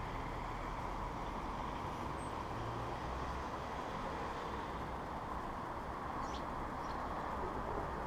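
Steady hum of city traffic, with a car driving past on the street. Two or three short, high bird chirps come about six seconds in.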